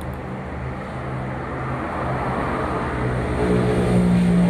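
Motorcycle engine running, getting louder and rising in pitch about three and a half seconds in as it speeds up.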